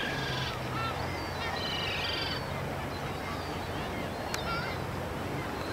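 Birds calling in quick high-pitched chattering series, twice in the first couple of seconds and once more briefly later, over a steady low hum.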